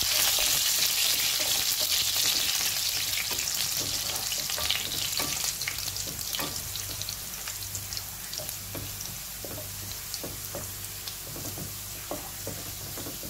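Garlic slivers, nigella seeds and dried red chillies sizzling in hot oil in a frying pan, stirred with a spatula that clicks and scrapes against the pan. The sizzle fades steadily as the heat is turned down.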